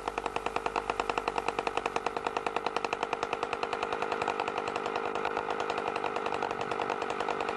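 Small two-stroke moped engine running at a steady speed, a fast, even putter with no change in pitch.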